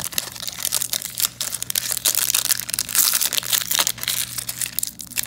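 Foil wrapper of a trading-card pack crinkling and crackling densely as it is gripped and pulled open by hand.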